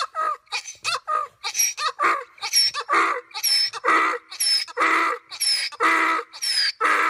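Donkey braying: a run of hee-haws, each a high squealing intake followed by a lower honking blast, about one hee-haw a second.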